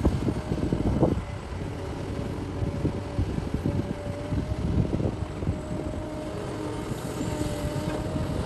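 Cat 6015B hydraulic mining excavator running steadily under load, a heavy diesel rumble with a steady whine over it. There are irregular knocks in the first second, then a smoother, quieter run.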